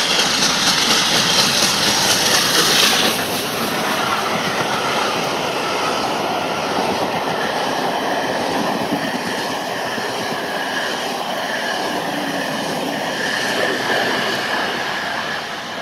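LNER A4 class three-cylinder 4-6-2 steam locomotive passing close by, a loud rush of exhaust and motion that drops away about three seconds in. Then its coaches roll past with a steady rumble and wheel clatter.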